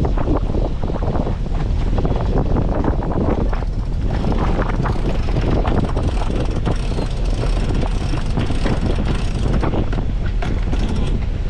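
A sailboat's engine running steadily under way, with wind buffeting the microphone in irregular gusts.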